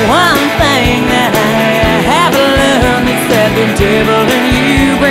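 Background music: a song with a singing voice.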